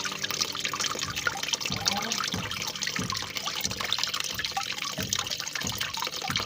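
Water trickling and splashing steadily, with small irregular gurgles and drips.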